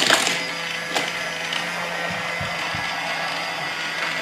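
Small electric motor of a Thomas & Friends Minis Motorized Raceway toy track running with a steady hum, carrying a plastic mini engine along the track, with a light click about a second in.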